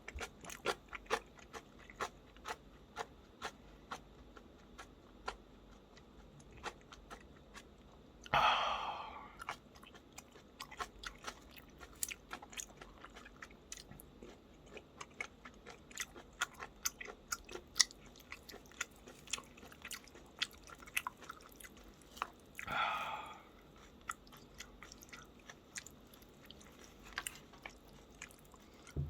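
Close-miked chewing of a meal of ganjjajang noodles and spicy kimchi, with many crisp crunches and wet mouth clicks. Twice a louder rushing sound lasts about a second.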